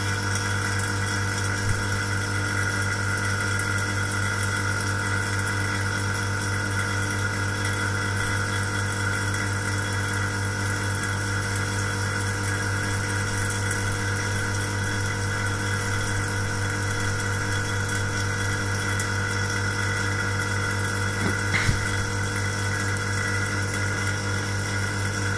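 Vacuum pump of an AC compressor test bench running steadily with a strong low hum, pulling a vacuum on the connected AC compressor for a leak test. A light knock is heard about two seconds in and again near the end.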